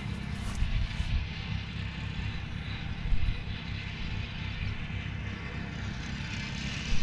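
Honda engine of a Toro Super Recycler walk-behind lawn mower running steadily while mowing grass, with a couple of brief louder surges about a second and three seconds in.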